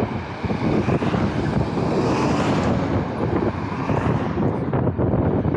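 Wind buffeting a cap-mounted action camera's microphone while riding along a road, over steady vehicle and road noise.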